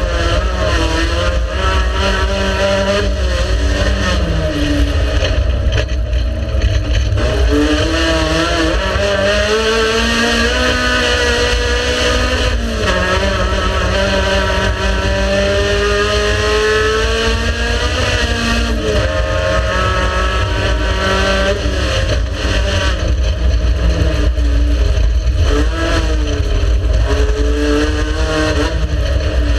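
Race car engine under hard driving, its pitch repeatedly climbing and then dropping sharply, over a heavy low rumble.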